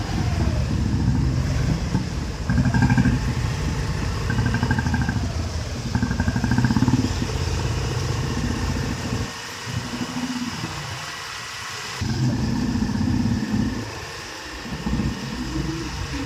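A group of motorcycles, among them a single-cylinder Royal Enfield Bullet, riding with engines running and rising and falling in pitch. The engine noise drops after about nine seconds.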